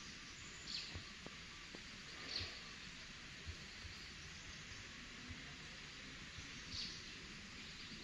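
Quiet outdoor ambience: a steady high hiss with three short, high chirps, about a second, two and a half and seven seconds in, and a few faint soft knocks.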